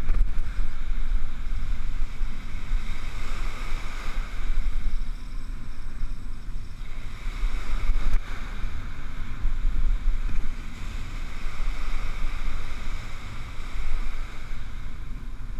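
Stiff onshore wind buffeting the microphone with a heavy rumble, over small surf washing up the beach in swells every few seconds.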